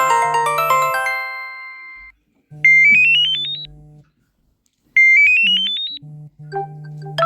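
Electronic phone ringtones played one after another. A quick cascade of chiming notes dies away, then a short rising run of notes over a held low tone sounds twice, and another ringtone starts near the end.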